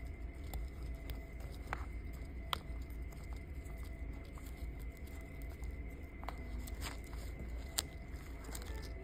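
Hands working and knotting a cord, giving scattered faint rustles and a few sharp light clicks, the loudest near the end. Under them is a steady low hum and a faint steady high tone.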